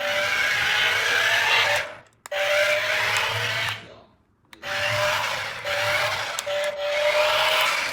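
A toy RC car's small electric motor and plastic gears whirring at speed, in three runs broken by short stops about two and four seconds in, the pitch creeping slightly upward within each run.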